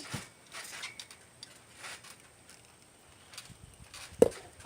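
Spring-powered Nerf dart blaster: a few faint clicks and ticks, then one sharp, loud shot about four seconds in.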